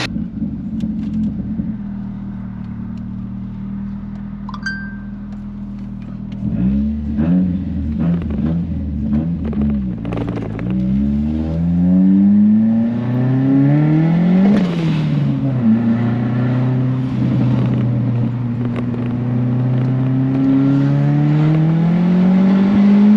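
Turbocharged 1.6-litre four-cylinder engine of a B13 Nissan Sentra idling steadily. About six seconds in, the car pulls away and the engine note rises through the revs, drops sharply at a gear change about halfway through, then climbs again in the next gear. Heard from inside the cabin.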